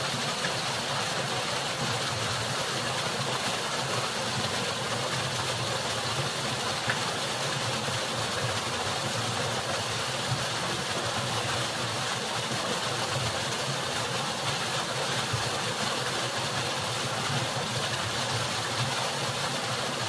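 Waterfall pouring steadily, a continuous, even rush of falling water.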